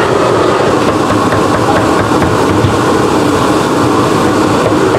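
Cleaver chopping braised pork on a thick wooden chopping block, a few faint chops about one to two and a half seconds in, under a loud steady background din.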